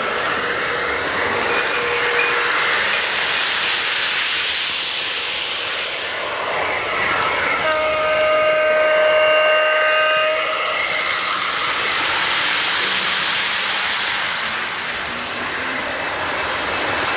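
O gauge model trains running on three-rail track with a steady rolling clatter, and a held multi-note horn-like signal from a train's onboard sound system for about three seconds in the middle.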